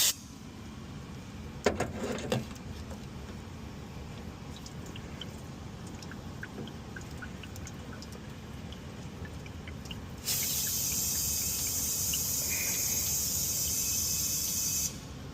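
A few clicks and knocks, then about ten seconds in a loud, steady hiss of compressed nitrogen blowing from a spray nozzle for about four and a half seconds before cutting off, pressure-flushing a clogged AC condensate drain line.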